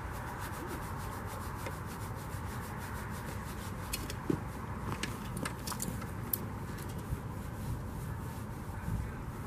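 Spinning fishing reel cranked steadily as a perch is reeled in: a dry rubbing whir with fast faint clicks, and a few sharper ticks about halfway through, over a steady low rumble.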